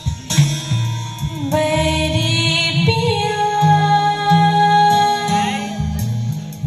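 Live stage band music for a song: long held melody notes with singing, over a bass line that steps from note to note.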